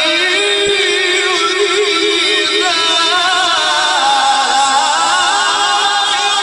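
A man's voice reciting the Quran in the drawn-out, melodic mujawwad style, holding a long ornamented phrase whose pitch waves and turns without a break.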